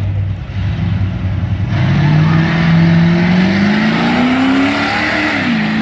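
Car engine accelerating hard: from about two seconds in, its pitch climbs steadily for about three seconds under a loud rush of noise, then drops near the end.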